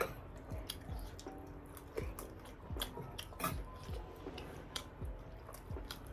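Close-miked chewing and mouth smacking of someone eating, with a wet chew a little more than once a second.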